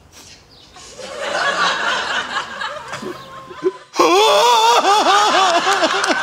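Audience laughter that swells about a second in, then breaks into a much louder burst about four seconds in, with one voice laughing in rapid, even "ha-ha-ha" pulses.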